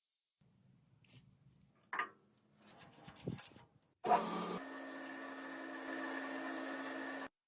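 A few faint handling knocks and clicks, then a small electric power tool starts about four seconds in and runs steadily for about three seconds before cutting off abruptly.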